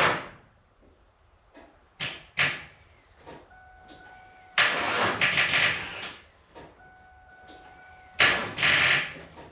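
1999 Ford Mustang V6 being cranked in two short tries, about a second and a half and then under a second, without starting, because the battery has gone flat. A steady electronic chime from the car sounds between the tries and cuts out while the starter turns.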